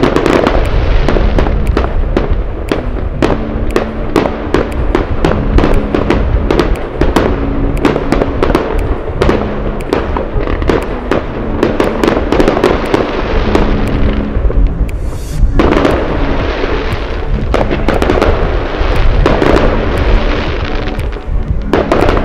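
Fireworks going off in rapid, irregular bangs and crackles, over background music with held low notes.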